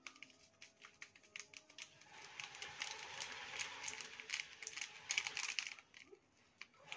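A small plastic-foil sachet being handled and shaken out over a pan: a run of quick light crinkling clicks and rustles, thickest in the middle and dying away near the end.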